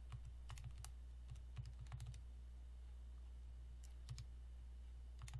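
Faint clicking of calculator buttons pressed in a few short runs, over a steady low hum.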